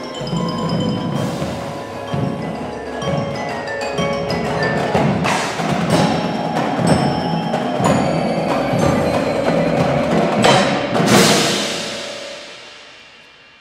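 Indoor percussion ensemble playing: marimbas and other mallet keyboards ring out notes over marching bass drums and drum hits. Loud full-ensemble hits about five and eleven seconds in, then the sound dies away near the end.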